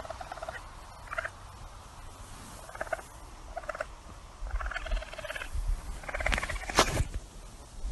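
Baby raccoon chittering: a string of short, high, bird-like chirps, coming more closely together around the middle. A sharp knock sounds near the end.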